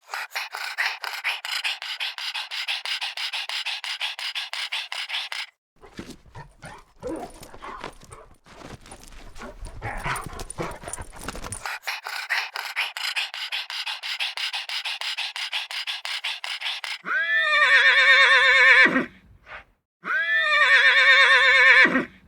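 Horse whinnying twice near the end, two loud calls of about two seconds each that rise and then quaver. Before them comes a long stretch of dense, rapid crackling noise, broken in the middle by lower, irregular noise.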